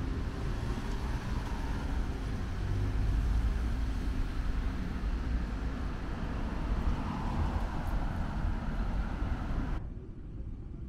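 Road traffic noise, a steady low rumble that cuts off suddenly near the end, leaving a much quieter ambience.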